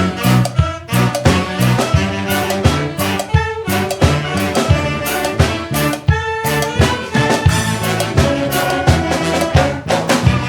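Brass band playing an upbeat tune: trumpets and trombones over a steady drum beat.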